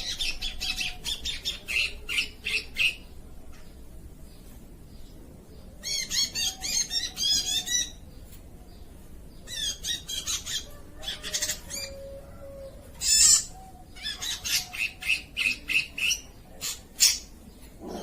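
Oriental magpie-robin (kacer) singing in bursts of rapid, varied chirps and warbles, several phrases with short pauses between them, with one sharp, loud note about two-thirds through.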